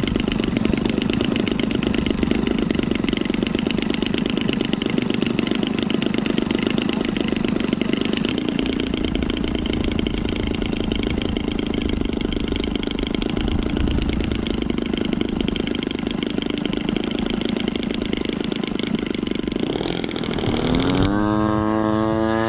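Radio-controlled model airplane engine running steadily. Near the end a propeller model plane's engine climbs sharply in pitch at full throttle as it takes off.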